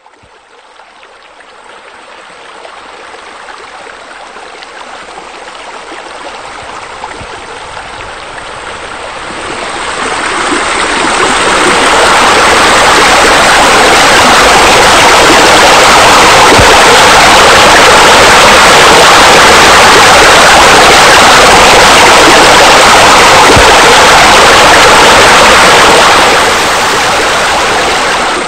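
Steady rush of running water, fading in over the first ten seconds or so, then loud and even, and dropping back somewhat near the end.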